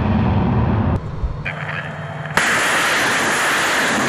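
Rocket motors of a 220 mm BM-27 Uragan multiple rocket launcher firing. A low rumble breaks off about a second in. About two and a half seconds in, the sudden loud, steady rush of a launch begins.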